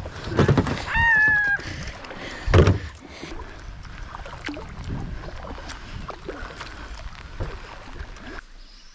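Kayak paddling: paddle strokes dipping and splashing, with heavy thumps at about half a second and two and a half seconds in and water noise running along the hull. A short, high, slightly falling call sounds about a second in, and the sound cuts off suddenly near the end.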